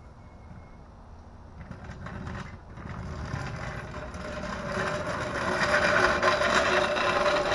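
Continuous scraping, rubbing noise that starts about a second and a half in and grows steadily louder, with a faint steady squeal in it.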